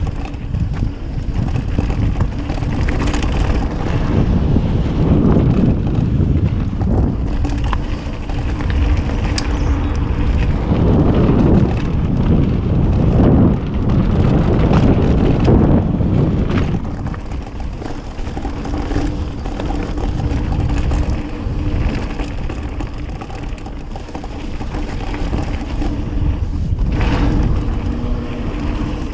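Mountain bike riding fast down a dirt forest trail: wind buffeting the rider's camera microphone over the rumble of the tyres on the dirt, loud and continuous.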